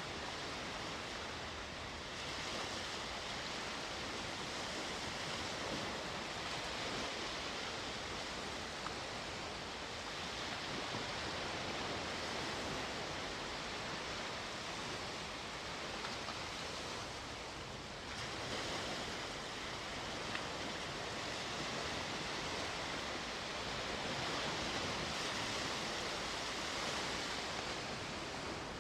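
Sea waves breaking and washing on the shore in a continuous rushing surf that swells and eases every few seconds.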